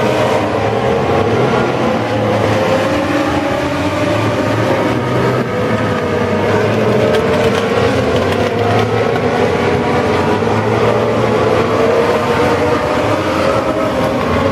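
A pack of Legends race cars running at speed on a dirt oval, their Yamaha motorcycle engines howling together. Several engine notes overlap, each rising and falling in pitch as the cars lift and accelerate.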